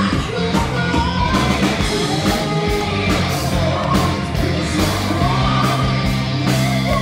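Live rock band playing: a woman singing lead over electric guitar, bass guitar and drums, loud and continuous.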